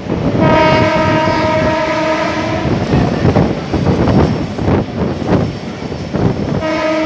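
Locomotive horn of an Indian superfast express train sounding a long blast of about two seconds, then starting again near the end, over the constant clatter of the coach's wheels running over rail joints and points at speed, heard from the coach's open doorway.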